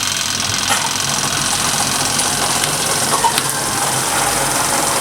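Spin-dryer tub of a Von 10 kg twin-tub washing machine running, a steady mechanical whir and hum.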